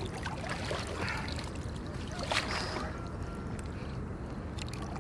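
Water sloshing and dripping off a large white sturgeon as it is lifted out of the river by hand, with a splash about two and a half seconds in, over a steady low rumble.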